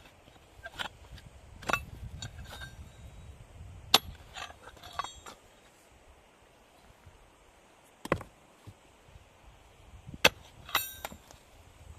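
Irregular knocks and clinks of objects being handled, a few of them ringing briefly like metal; the sharpest knocks come about four, eight and ten seconds in.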